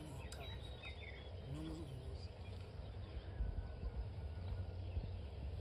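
Outdoor background: a steady low rumble of wind on the microphone with a few faint bird chirps in the first second, and a brief murmur of a voice about a second and a half in.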